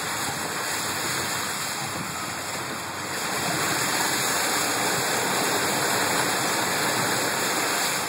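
Car tyres running through standing floodwater on a parking lot, a steady rushing hiss of water spraying up under the car.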